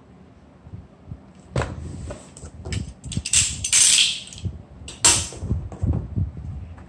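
Corrugated cardboard box being handled on a stone countertop: a knock about a second and a half in, then scraping and rustling of cardboard, and another sharp knock about five seconds in.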